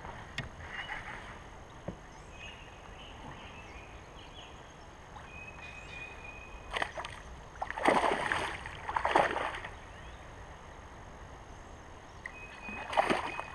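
Water sloshing and splashing against a fishing kayak's hull, in a few short bursts about seven, eight and nine seconds in and again near the end. A few short high whistle-like tones sound earlier.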